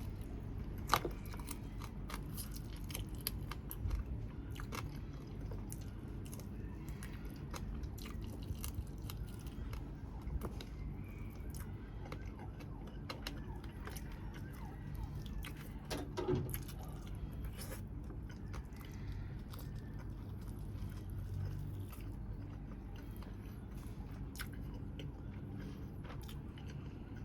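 A person chewing and biting Thai grilled chicken close to the microphone, with scattered wet clicks and crunches. A steady low hum runs underneath, and a sharper click comes about a second in.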